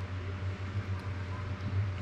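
A steady low hum with an even hiss: constant room background noise.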